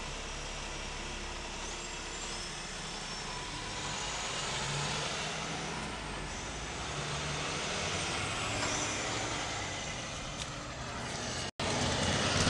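Steady road and engine noise of a car driving slowly, heard from inside the car. The sound cuts out for an instant near the end.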